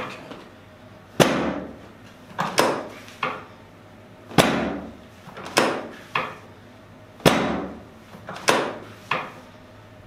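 Chiropractic drop table's pelvic section dropping as the chiropractor thrusts on the sacrum. About ten sharp clacks with a low thud, each dying away quickly, spaced about a second apart, some in quick pairs.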